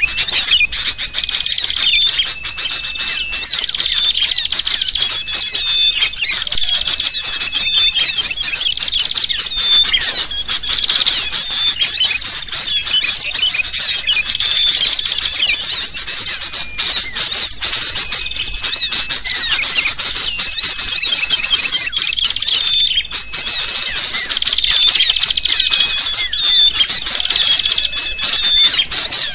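Sooty-headed bulbuls (kutilang) calling noisily and agitatedly, mixed with the chirps of many small birds in a dense, continuous chorus. Similar call phrases recur every second or two. This is a mixed bird-lure recording meant to draw wild birds in.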